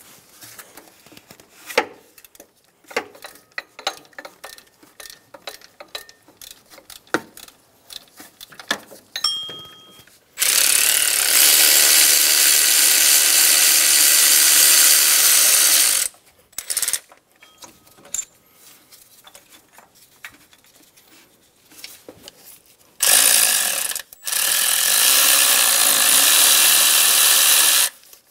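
A power tool runs in two long, steady stretches of about five and a half seconds each, spinning out the 12 mm bolts on a truck's AC compressor and its bracket. Before that come scattered clicks and knocks of socket and tool handling.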